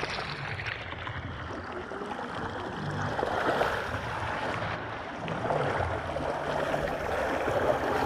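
Water rushing down an open water slide around a rider going down feet-first: a steady wash of running water.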